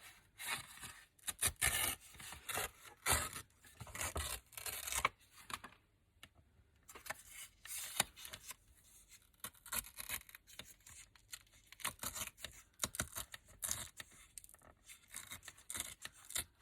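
Paper being torn along a deckle-edge ruler in a run of short rasping pulls, with a brief pause partway through, leaving a ragged deckle edge.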